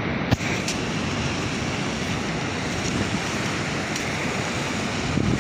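Steady wash of sea surf mixed with wind on the microphone, with one brief sharp knock about a third of a second in.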